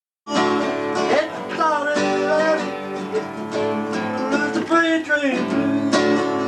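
Country music with acoustic guitar; the music starts just after the beginning.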